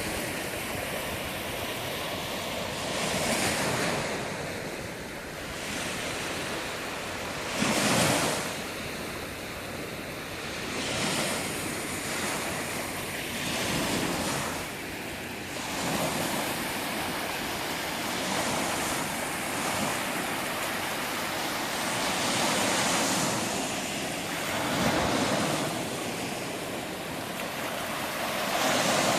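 Sea waves breaking and washing on a beach, a steady rush of surf that swells and falls every few seconds, one wave breaking sharply about eight seconds in. Wind buffets the microphone.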